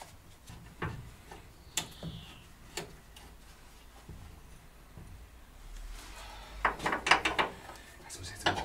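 Scattered knocks and clicks of hand tools and metal parts at the engine mount in a car's engine bay, with a quick run of sharp clicks and knocks about seven seconds in as the mount is worked into place.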